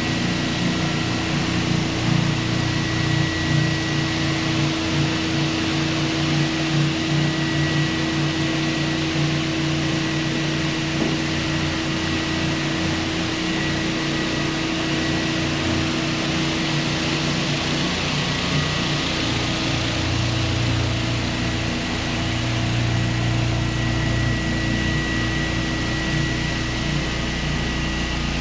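Hyper Orbit random-orbital floor sander running steadily on a wood floor, a continuous machine hum with a steady whine.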